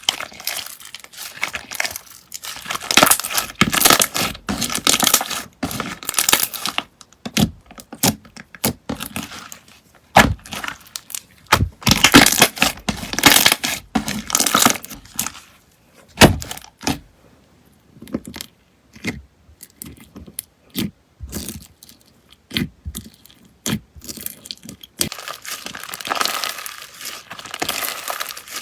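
Slime being squeezed and worked by hand, giving runs of sharp crackles and pops in bursts with short pauses between them.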